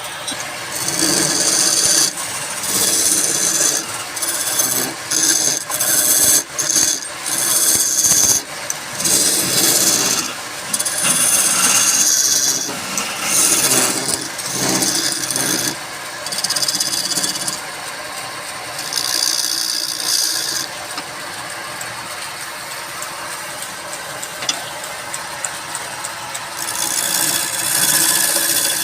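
Woodworking machine running steadily while a tool cuts into wood in repeated scraping bursts of one to two seconds each. The cutting thins out for several seconds past the middle and picks up again near the end.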